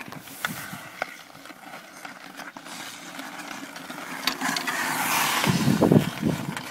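Pond hockey on outdoor ice: a couple of sharp clacks of sticks on puck or ice in the first second, then a growing hiss of skate blades scraping the ice about four to six seconds in, with low rumbling bursts near the end.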